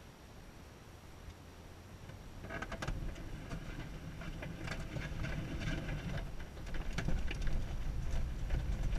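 Glider beginning its aerotow takeoff roll on a grass strip: from about two and a half seconds in, a rumble and dense rattling of the airframe and wheel over the grass starts up and grows steadily louder.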